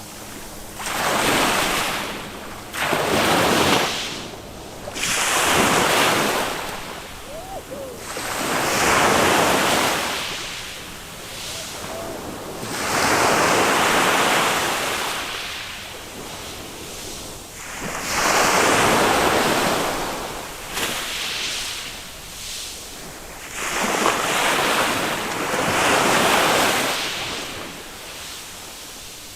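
Small waves of a calm Mediterranean sea breaking and washing up a sand beach, one after another. Each wash swells to a hiss and fades, every few seconds.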